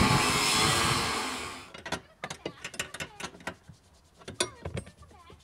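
Angle grinder grinding steel, a loud, steady grind that fades out about a second and a half in. Then a run of short, sharp metallic clicks and knocks from tools working at a car seat mount.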